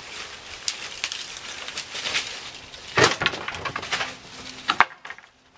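Tree branches and twigs rustling and snapping as a person crashes about in them, with a run of sharp cracks; the loudest snaps come about three seconds in and just before the end, after which the sound suddenly drops away.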